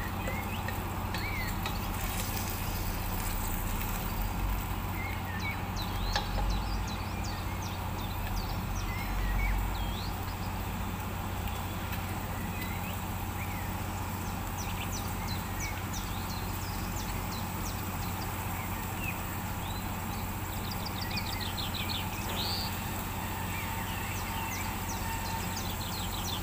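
A steady low hum, with small birds chirping in short calls here and there.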